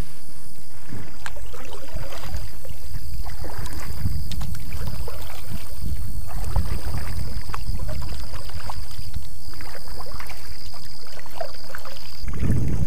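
Knocks and scrapes of a plastic fishing kayak and its gear as a person climbs aboard and settles into the seat, over a low rumble. A steady high-pitched whine runs in the background.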